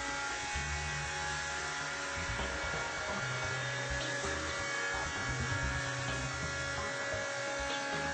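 BDS AutoCUT 500 bevel edge milling machine running, its milling cutter taking a pass along a plate edge to cut a weld-seam chamfer; a steady motor whine.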